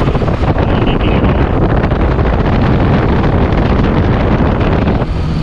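BMW 330Ci's straight-six engine running close up in the engine bay with its newly fitted water pump, under a loud rush of air over the microphone.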